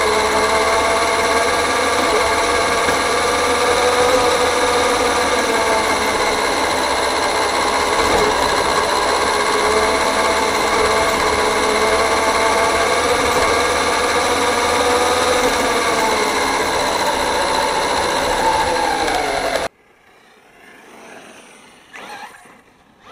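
Brushless 4350kv electric motor and gear drivetrain of an FTX Carnage 2.0 RC truck whining steadily, close up as heard from the truck itself, with several steady tones whose pitch shifts only slightly. It cuts off suddenly near the end, leaving only a much fainter sound.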